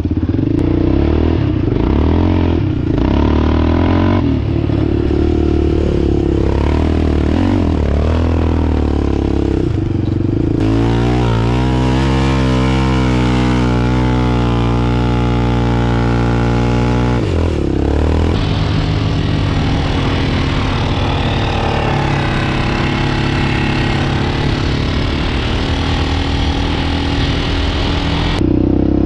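Off-road vehicle engine running hard while riding across sand dunes, with revs rising and falling under a steady rushing noise. From about a third of the way in to a little past halfway the engine holds a steady high pitch, then drops back.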